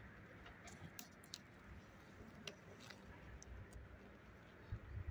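Faint, irregular clicks and light knocks of a metal hive tool and wooden frames being pried and shifted in an open beehive box.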